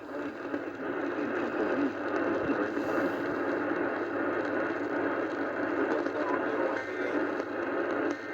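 Steady radio static: a continuous hiss of noise from a receiver.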